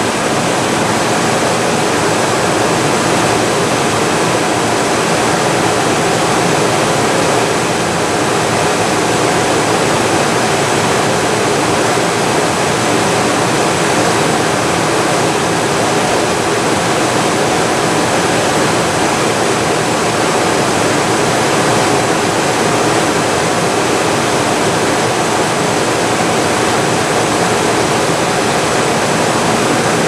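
Amana Cool Zone 18C3MD 18,000 BTU wall air conditioner running steadily in cooling mode: a loud, even rush of air from its fan over the hum of its rotary compressor. It is working properly under a light load.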